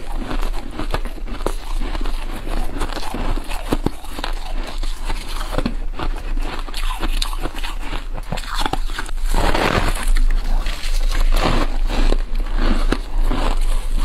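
Soft freezer frost crunching and crackling as it is bitten and chewed close to a clip-on microphone, with the crinkle of the frost clump squeezed in plastic-gloved hands. A steady low hum runs underneath.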